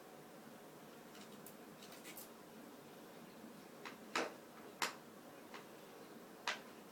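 Faint, scattered small clicks and taps, about eight or nine irregular ones with the sharpest just after the middle, as of parts and tools being handled during hardware disassembly.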